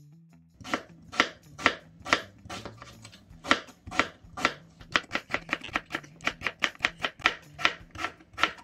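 Kitchen knife slicing a raw sweet potato on a plastic cutting board, each cut ending in a sharp tap of the blade on the board. The cuts come about two a second and quicken in the middle.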